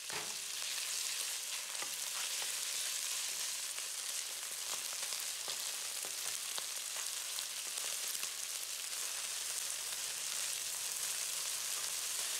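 Beef cubes searing in hot oil in a wok, a steady frying sizzle, with occasional light clicks of a wooden spatula stirring them.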